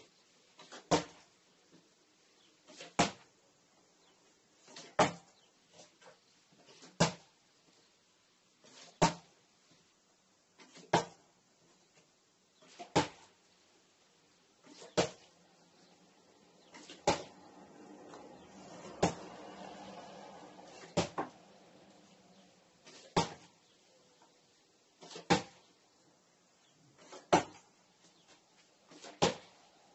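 A partly filled plastic water bottle flipped and landing with a sharp knock on a hard surface about every two seconds, around fifteen times in a row: a run of bottle flips.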